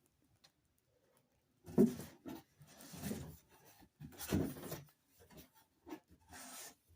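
Plastic packaging, cellophane and bubble wrap, being handled and pulled off an item: a few short crinkling rustles, starting about two seconds in.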